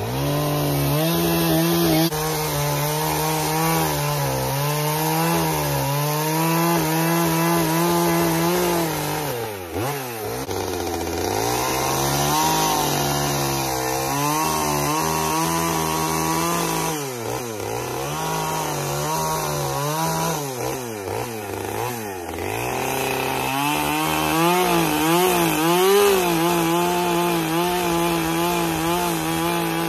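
Two-stroke gas chainsaw running at high revs and cutting into a wooden log. Its engine pitch dips and recovers repeatedly as the chain bogs in the wood, with several quick dips in a row a bit past the middle.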